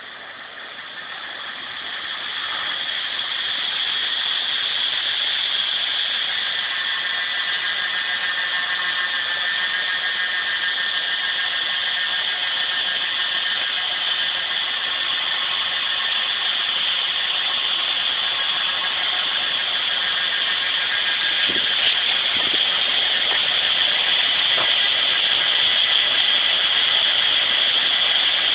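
Harvest machinery running steadily, a hissing drone with a thin whine over it, growing louder over the first few seconds and then holding.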